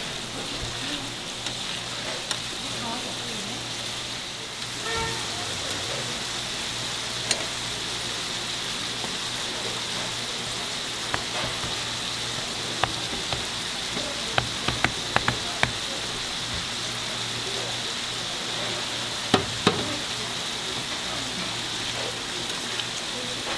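Tteok-galbi (minced short-rib patties) sizzling steadily in oil on a flat-top griddle. Sharp clicks of a metal spatula on the griddle come in a quick run past the middle and twice more later.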